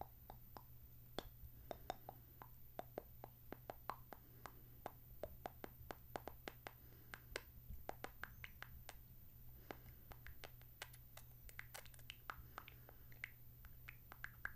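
Close-miked mouth sounds: wet lip smacks and kissing noises, coming as quick irregular clicks several times a second, over a faint low hum.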